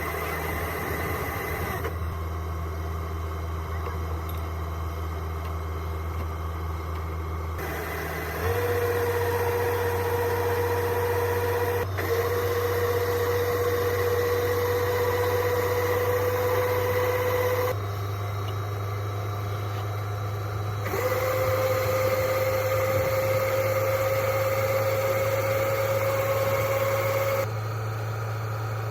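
Rice combine harvester running steadily: a low engine drone joined twice by a higher whine that slowly rises in pitch over several seconds. The sound shifts abruptly several times.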